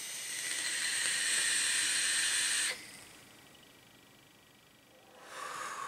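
Puff on a sub-ohm vape tank with a 0.6-ohm stainless steel coil and its airflow fully open: a steady airy hiss of the draw and firing coil for nearly three seconds that cuts off suddenly. Near the end comes a softer, shorter breathy hiss of the vapor being exhaled.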